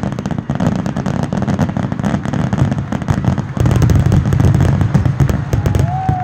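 Aerial firework shells bursting in rapid succession: a dense run of bangs and crackles over a deep rumble, growing louder about three and a half seconds in.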